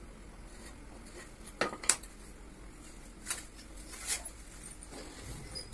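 Metal hand tools clinking and clacking against a tiled floor as they are picked up and put down: a few separate knocks, the loudest two close together about two seconds in.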